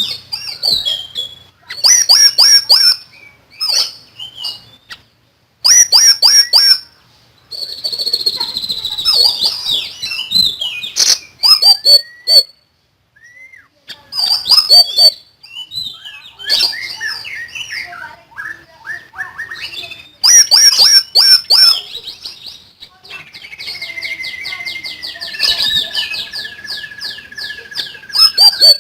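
Siri-siri songbird singing in loud bursts of rapid, sharp, high chattering notes with short pauses between them, and one longer whistled note dropping slightly in pitch a little after the middle.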